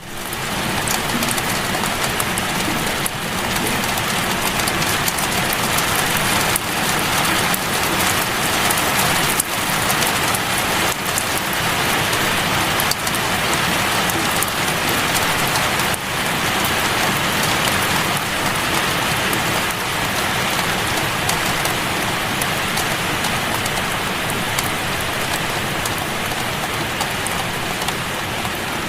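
Steady heavy rainfall, a dense even hiss of rain falling on surfaces with fine drop patter throughout, fading in at the start.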